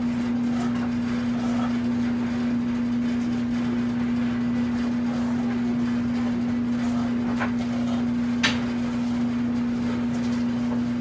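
Knife slicing a green bell pepper into strips on a cutting board, a few sharp taps of the blade on the board, the sharpest about eight and a half seconds in, over a steady low hum.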